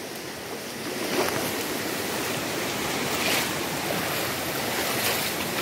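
Muddy floodwater flowing and churning past, making a steady rushing.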